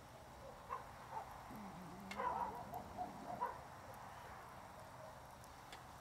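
A dog whining softly a few times in the middle, short whimpers over a low whine, with a few faint clicks.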